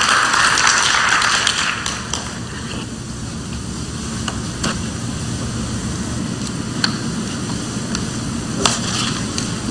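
Audience applause dying away about two seconds in, leaving a steady hum in the hall with a few scattered clicks and knocks.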